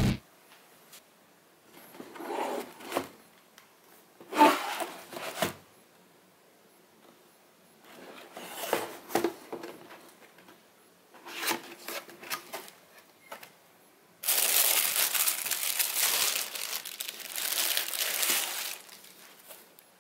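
A cardboard shoebox being handled and opened: several short bouts of cardboard sliding and scraping, then a longer, louder spell of tissue paper rustling and crinkling as the packing paper is folded back.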